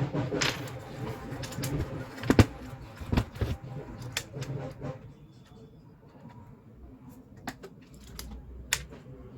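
Scattered clicks and knocks of a car stereo head unit being handled on a workbench, with a few sharp knocks about two to three seconds in. After about five seconds the clicks become sparser and quieter.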